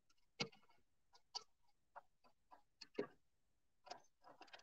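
Quiet, irregular clicks and knocks from a Sizzix Big Shot die-cutting machine being worked by hand, with two louder clunks about half a second in and about three seconds in. The embossing folder won't feed through because the machine's handle has worked loose.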